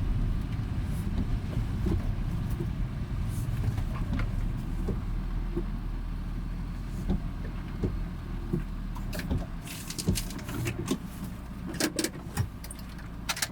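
Light truck running and rolling along with a steady low rumble. About ten seconds in the rumble eases, and a run of sharp clicks and knocks follows.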